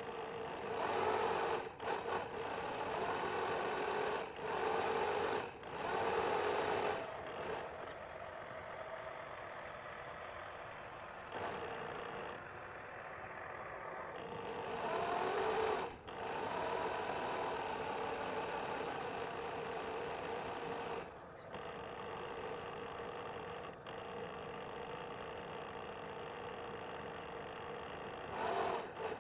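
The DC 775 electric drive motor of a radio-controlled model boat running with a steady whine, which grows louder in several stretches of a second or more, most of them in the first seven seconds, and dips sharply a few times as the throttle changes.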